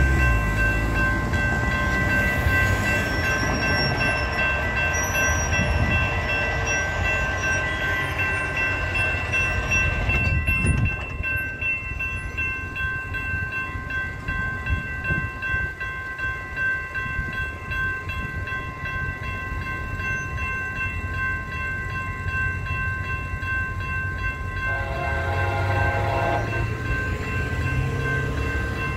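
Railroad grade-crossing bell ringing steadily while the crossing is activated. About 25 seconds in, the horn of an approaching Metrolink train sounds one blast of about two seconds.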